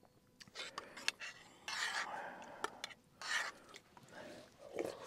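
Someone eating hot soup: a few small clicks of a spoon against the bowl, then short breathy slurps.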